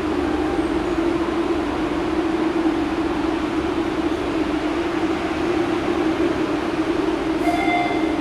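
MBTA Red Line subway train standing at an underground platform with its doors open, its onboard equipment giving a steady low hum. A brief high tone sounds near the end.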